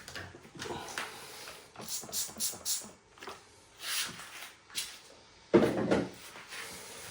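Handling noises: a string of short scrapes, knocks and splashy rushes, with the loudest knock about five and a half seconds in.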